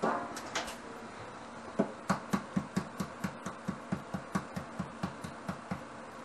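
A brief plastic-bag rustle at the start, then a rapid series of light taps, about four or five a second, slowly getting softer: an egg being tapped against the rim of a stainless steel bowl to crack its shell.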